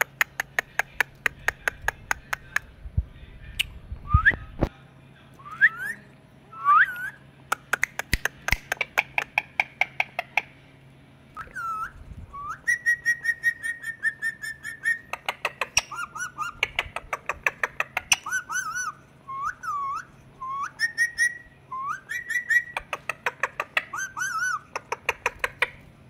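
Indian ringneck parakeet whistling and clicking: rapid trains of sharp clicks mixed with short whistled notes that bend up and down, and a held whistle with quick clicks through it about halfway in.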